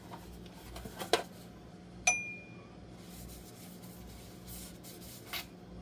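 Metal loaf pans being handled on a counter: a light knock about a second in, then one sharp metallic clink that rings briefly about two seconds in, over a faint steady hum.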